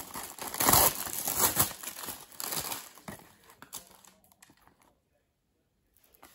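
Clear plastic film on a cardboard mushroom tray being torn open and crinkled, loudest in the first three seconds and tailing off into lighter rustling. Near the end there are faint crackles as a hand reaches into the cardboard tray for the mushrooms.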